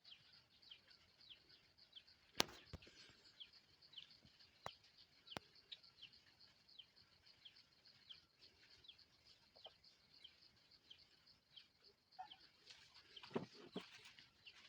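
Faint background bird, repeating a short, high, falling chirp about twice a second, with a few sharp clicks from handling, the loudest about two and a half seconds in.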